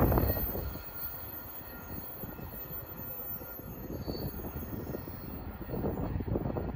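A receding BNSF intermodal freight train. Its rumble drops off about a second in and fades, with wind gusting on the microphone.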